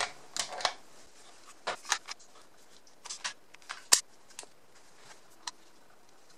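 Irregular plastic clicks and clacks of a handheld two-way radio being handled as its battery pack is fitted and its rubber antenna screwed on, with the sharpest click about four seconds in.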